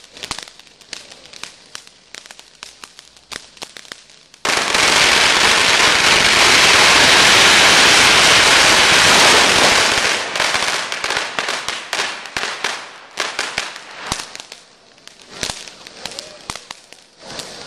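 Strings of Chinese firecrackers going off. Scattered sharp bangs for the first few seconds give way, about four and a half seconds in, to a dense, continuous rattle of rapid-fire cracks lasting about five seconds. The cracks then thin out to sporadic pops.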